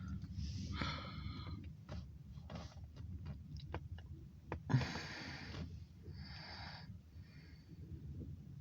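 Breathing close to the microphone, a few soft breaths about a second in and around the middle, over a faint steady low rumble with scattered light clicks.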